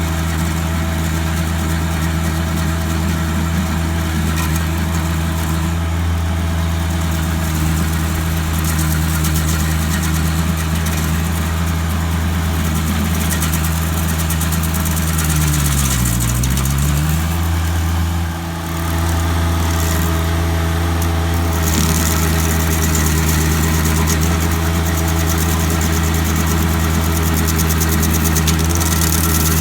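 Stump grinder's gasoline engine running steadily. About halfway through its pitch dips briefly and recovers, and a little later a rougher hiss joins the engine sound.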